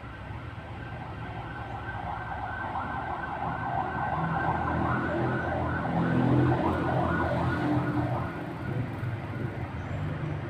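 A siren wailing with a wavering pitch over a low, steady rumble. It grows louder to a peak about two-thirds of the way through, then eases off.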